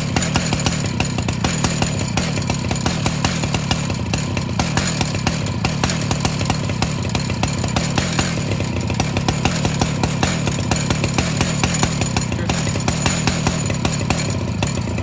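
Chainsaw on an Alaskan chainsaw mill ripping lengthwise through a cedar log, its engine running steadily under load.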